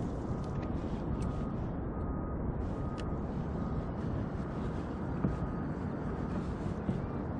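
Small boat's motor running steadily at trolling speed: a low, even rumble, with a faint high tone coming and going about once a second.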